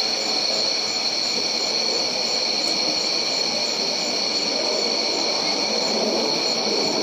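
Steady chorus of night insects, crickets or katydids, several high shrill trills held without a break, with a fainter pulsing call repeating a few times a second above them.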